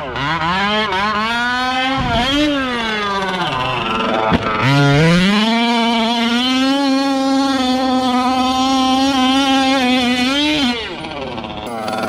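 Two-stroke petrol engine of a Losi 5ive-T 2.0 large-scale RC truck revving up and down. About five seconds in it is held at a high steady pitch on full throttle for several seconds, then eases off near the end. There is a single sharp knock about four seconds in.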